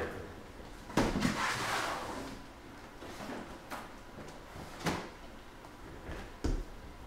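Handling noise: a sharp knock about a second in, followed by a rustle, then a few lighter knocks and bumps of things being moved and set down on a table.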